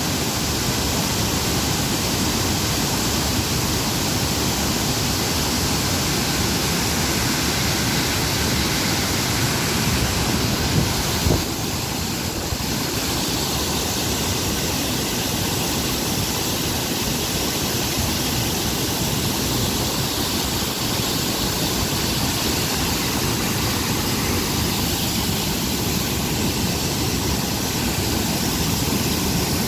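Steady, loud rush of water.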